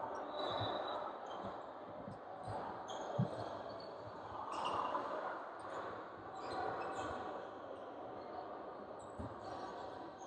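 Basketball bouncing on a hardwood gym floor, a few scattered thumps with the loudest a little after three seconds in, over a steady echoing gym murmur. A short high sneaker squeak comes near the start.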